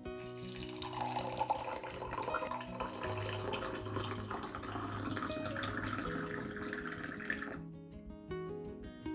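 A thin stream of water pouring into a glass mug of sauce, the splashing rising in pitch as the mug fills, then stopping abruptly near the end. Soft guitar music plays underneath.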